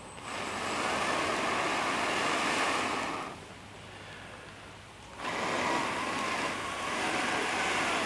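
A person blowing hard into a bracken tinder bundle with smouldering cramp balls inside, to coax the embers into flame: two long, steady rushes of breath of about three seconds each, with a short pause between them.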